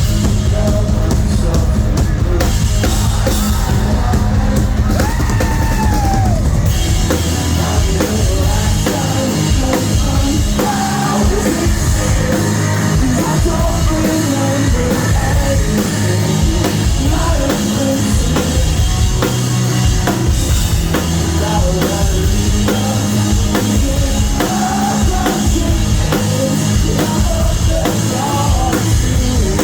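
Live rock band playing loud, with a pounding drum kit, guitars and sung vocals, recorded from the crowd on a phone.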